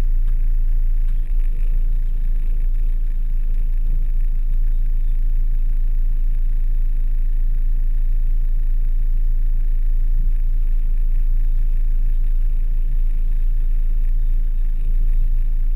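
Volkswagen T3 Syncro van's engine running steadily, a low even rumble heard from inside the cab.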